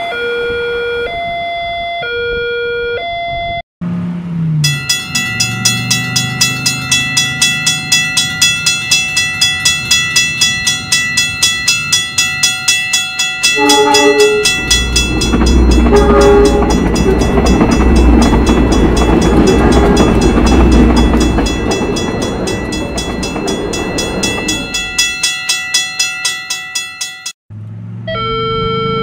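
Railway level-crossing alarms. First an electronic two-tone alarm alternates high and low notes about once a second. After a sudden cut, a crossing bell rings in rapid strokes, about two to three a second, and about halfway through a train horn sounds twice and a train rumbles past for several seconds. Near the end the two-tone alarm returns after another cut.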